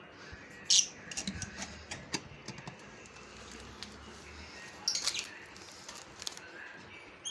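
Caged lovebirds giving short, sharp, high-pitched chirps, once just under a second in and again in a quick cluster about five seconds in, with a run of light clicks and rattles in between.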